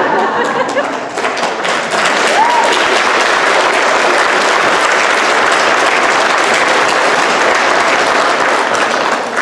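Applause from many people clapping together in a hall. It swells up in the first second and stops just before the end.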